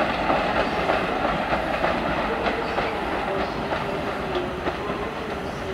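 Freight train of covered hopper wagons rolling away over the switches, its wheels clicking and clattering over rail joints and crossing frogs in a rapid, irregular clatter that slowly fades. A faint steady wheel squeal joins about two seconds in.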